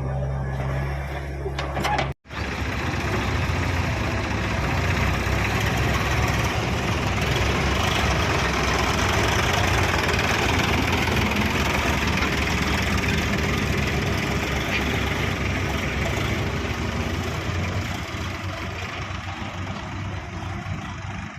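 Heavy diesel engine running, steady at first. It breaks off abruptly about two seconds in, then comes back louder and rougher, as if working under load, and eases off near the end.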